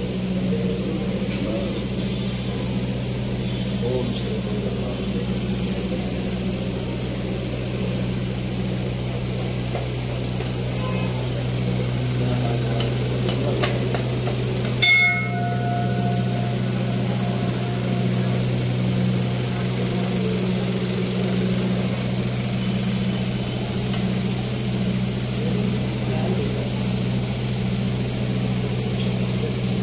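A steady low hum, with faint background voices. About halfway through, a single metal bell strike rings out briefly and fades.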